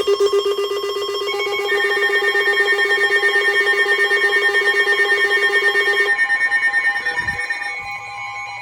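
Electronic emergency alert tones: several steady pitches sounding together with a fast pulsing. New pitches come in about a second and a half in, the lowest one stops around six seconds, and the whole signal gets quieter near the end.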